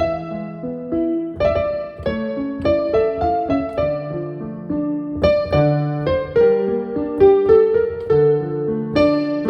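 Solo piano music: a melody over chords, each note struck and left to ring and fade.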